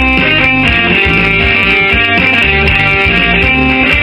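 Band music played on two arranger keyboards: an instrumental groove with a steady beat, bass, and a strummed guitar-like part, with no singing.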